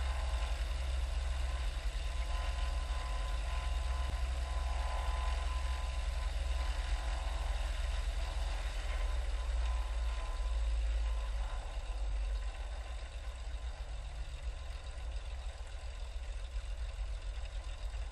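Cessna 182's piston engine idling on the ground in a steady low rumble, dropping a little in level about two-thirds of the way through.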